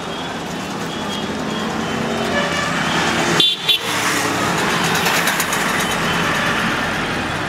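Steady road traffic noise with short vehicle horn toots.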